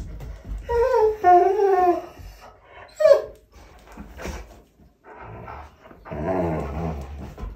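German Shorthaired Pointer whining to complain that his tug toy is being held away from him: a high, wavering whine about a second in, a short sharp cry around three seconds, and a lower, rougher drawn-out whine near the end.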